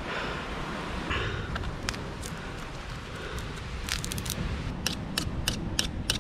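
Dry coconut husk fibre being torn and fluffed by hand into tinder, a dry rustling and tearing. In the second half it gives way to a quick series of sharp ticks and scrapes, about three a second.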